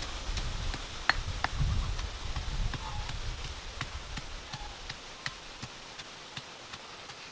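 Snails grilling in their shells on wooden skewers, their juices frothing and popping: scattered sharp crackles at irregular times, over a low rumble that dies away about two-thirds of the way through.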